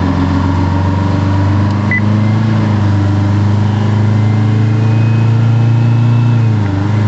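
Fire engine's engine running steadily under way, heard from inside the cab, its note rising a little about two seconds in. Near the end the engine note dips briefly and then picks up again.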